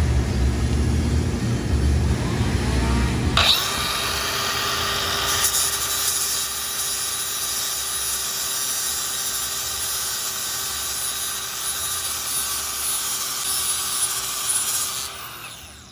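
Angle grinder grinding down a steel weld bead, starting with a sharp bite about three seconds in and running steadily for about twelve seconds, then winding down near the end. A low rumble comes before it.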